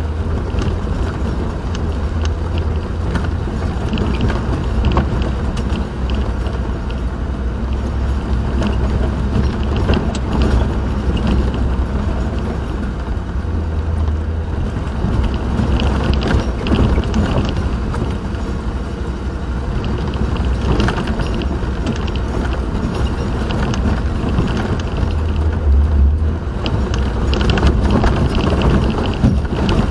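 Moving car heard from inside the cabin: a steady low road-and-engine rumble with scattered small clicks and rattles.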